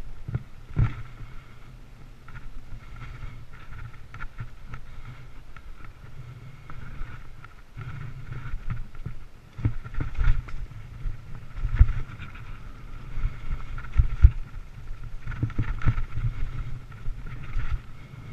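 Mountain bike riding over a rough dirt trail: a continuous rumble and rattle with wind on the microphone, broken by sharp knocks from bumps, the loudest about twelve and fourteen seconds in.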